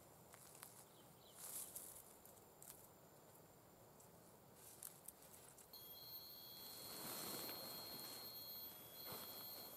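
Near silence: faint outdoor night ambience with a few light ticks. About six seconds in, a steady high-pitched tone starts and breaks briefly once.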